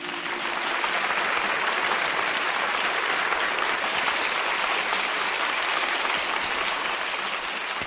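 Studio audience applauding, a dense, steady clapping that eases off slightly near the end.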